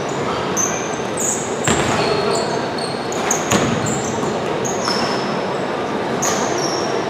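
Basketball game play: sneakers squeaking on the court in many short high chirps, and the ball bouncing a few times, over the steady noise of the hall.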